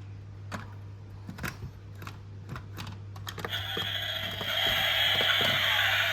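Small, sharp clicks and taps from a 1:24 scale diecast model pickup being handled, over a steady low hum. A little past halfway a louder, even hiss sets in and stays.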